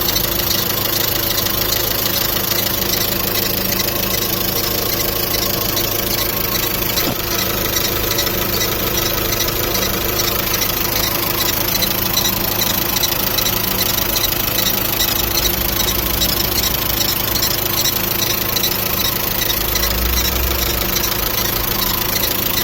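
VW Caddy engine idling with a high, rhythmic squeal from the timing-belt drive, a squeal that appears on a cold engine after a timing belt change. A workshop put it down to the timing belt's pulleys.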